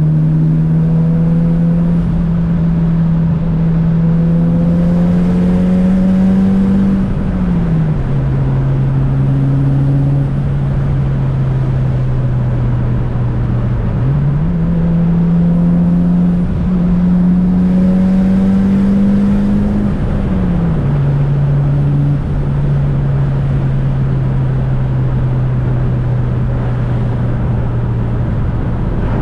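Mitsubishi Lancer Evolution VIII's tuned, turbocharged 4G63 four-cylinder engine running under way at about 400 hp. The engine note climbs slowly, then drops sharply about seven seconds in and again about twenty seconds in, and holds steadier between.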